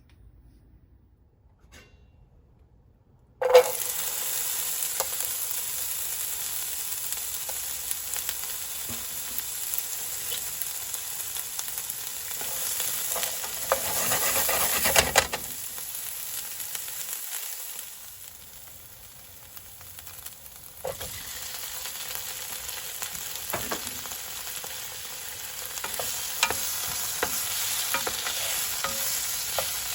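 Food sizzling and frying in hot oil, starting suddenly about three and a half seconds in, with scattered taps and scrapes of a utensil stirring it. The sizzle grows louder a little before halfway, drops back for a few seconds, then picks up again.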